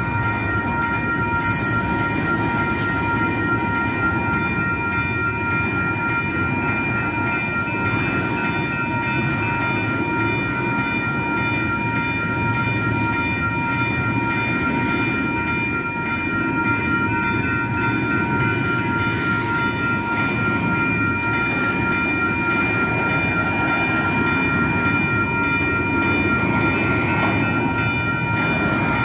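Double-stack intermodal container train rolling past: a steady rumble of wheels on rail, with several high steady tones running over it.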